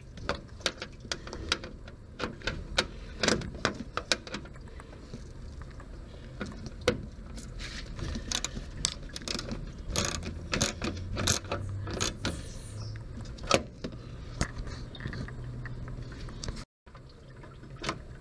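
Socket ratchet on an extension clicking in short irregular runs, with small metal knocks, as it loosens the 10 mm bolts holding a pickup's radiator.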